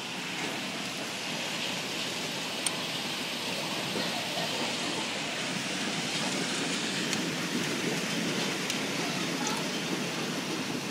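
A hailstorm: hail and heavy rain pelting down in a steady, dense rush, with a few sharp clicks of single hailstones striking hard surfaces.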